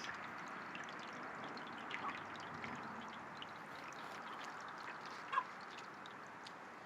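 Water running steadily out of a DIY 5-gallon bucket waterer's hose into its drinking bowl as it fills. A brief bird call is heard about five seconds in.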